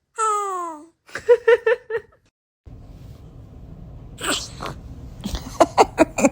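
Baby vocalizing: a falling whine, then a quick run of short "ah" sounds. About four seconds in comes a sharp sneeze, followed near the end by a run of short breathy bursts.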